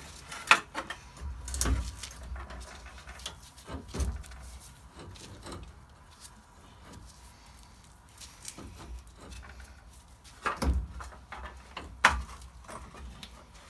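Scattered clunks and knocks of metal parts and tools being handled during a wheel hub replacement: a sharp knock near the start, a few more over the next few seconds, then two louder clunks near the end, with quiet handling noise between.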